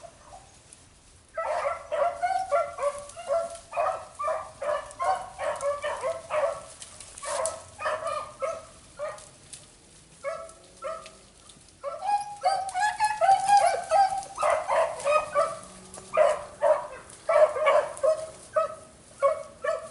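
Beagles baying while running a rabbit's track: strings of short, quick barks several a second, with a brief pause about ten seconds in and a few longer drawn-out notes soon after.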